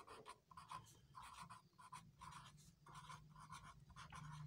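Faint marker-pen strokes on paper: a quick run of short scratches as words are written out by hand.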